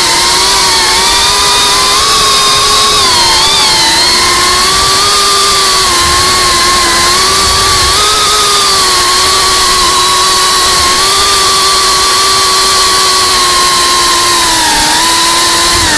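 Brushless motors and ducted props of a GEPRC Cinelog 35 FPV cinewhoop whining steadily in flight, the pitch wavering with throttle and dipping briefly near the end.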